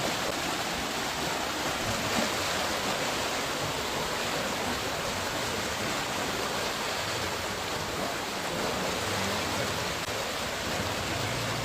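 Floodwater rushing and flowing steadily, a constant even wash of water noise.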